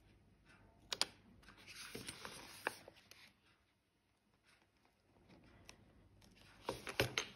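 Hands handling a zippered fishing-lure case of metal spoon lures: a sharp click about a second in, a stretch of scraping and rubbing, then a few quick clicks near the end.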